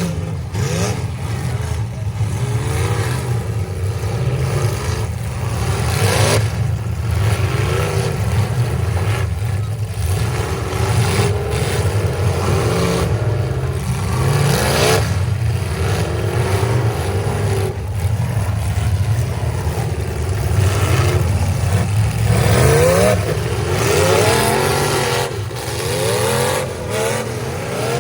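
Several demolition derby cars' engines revving hard and overlapping, their pitch climbing and dropping again and again as the cars accelerate and back off, with sharp bangs scattered throughout.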